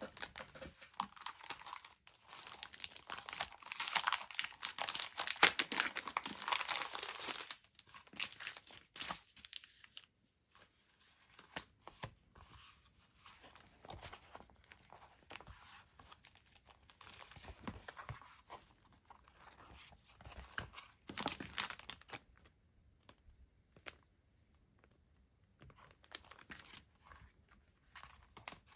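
Packaging crinkling and tearing as stationery purchases are unwrapped by hand: a long stretch of loud crinkling for the first seven seconds or so, then quieter rustling and small taps, with another short burst of crinkling about three-quarters of the way through.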